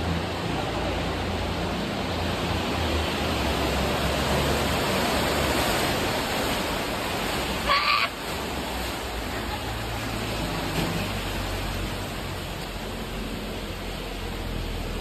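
Heavy rain and rushing floodwater: a steady noise of falling and flowing water, with one short louder burst about eight seconds in.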